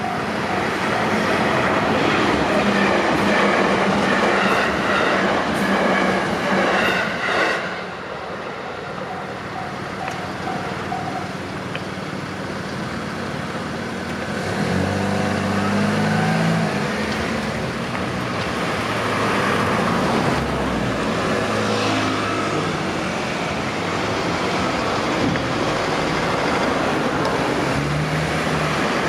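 A JR Tokaido Main Line train passing over a level crossing, loud for the first eight seconds or so and then fading, with the crossing's warning alarm ringing in a steady repeating beat. The alarm stops about eleven seconds in. Later, lower engine sounds of road vehicles follow.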